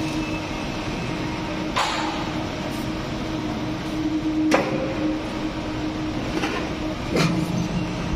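Steady workshop machine noise with a constant low hum, broken by three sharp knocks: one about two seconds in, one midway and one near the end.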